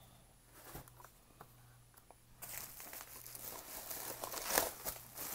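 Plastic bubble wrap crinkling and crackling as it is handled and pulled open by hand. It starts about halfway through, after a couple of light clicks.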